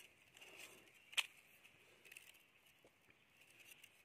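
Quiet, scattered small patters and ticks, with one sharp click about a second in, over a faint steady high hum.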